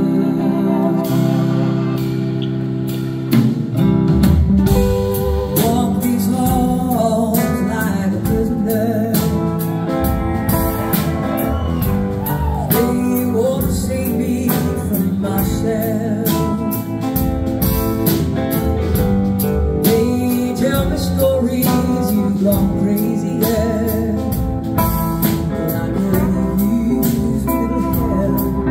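Live rock band playing a song with a lead vocal: sustained organ chords at first, then drums and electric guitars come in about three seconds in and the band plays on steadily.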